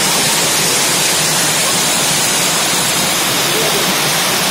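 Small waterfall pouring over rock ledges into a shallow rocky stream: a steady, loud rush of splashing water that does not change.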